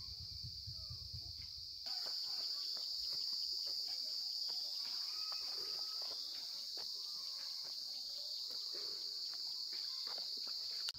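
Steady high-pitched drone of an insect chorus, crickets or cicadas, with scattered clicks, rustles and small chirps over it. A low rumble cuts off abruptly about two seconds in, and the drone is louder after that.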